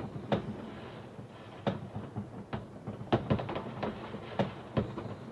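Fireworks and firecrackers going off: irregular sharp bangs and cracks, with a quick cluster of several about three seconds in.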